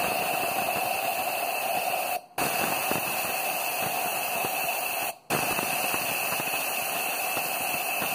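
Compressed-air blow gun hissing steadily into a motorcycle cylinder head's intake port, with a steady whistle over the hiss and two short breaks where the air is let off, about two and five seconds in. It is an air leak test of the freshly lapped intake valve, and the valve holds without leaking.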